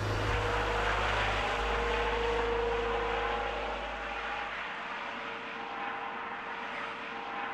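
Rescue helicopter flying away overhead: a steady rush of rotor and turbine noise with a constant whine. The deep low throb drops away a little past halfway, and the whole sound slowly grows quieter.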